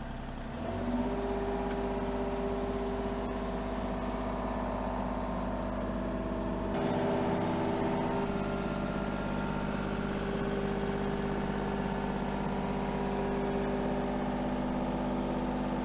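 Kubota mini excavator's diesel engine running steadily under hydraulic load as the boom swings and lifts a log, its note shifting slightly about a second in and again about midway.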